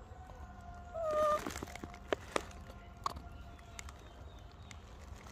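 Macaque gives one short, clear coo call about a second in, followed by three or four sharp clicks over the next two seconds.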